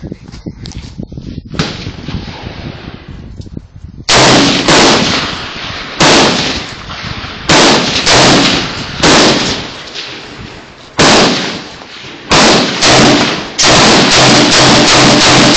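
Rifle shots, about a dozen, fired one at a time. They begin about four seconds in after some quiet handling clicks, with irregular gaps at first, then come in quick succession near the end. Each shot is very loud and leaves a short fading echo.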